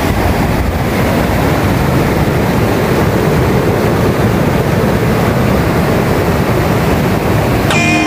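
Fast river water rushing over rocks in rapids, a loud, steady rush with no pauses. Music begins just before the end.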